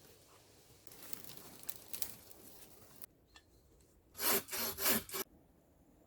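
Scraping, rasping strokes: a stretch of lighter scraping, then three loud rasping strokes in quick succession about four seconds in.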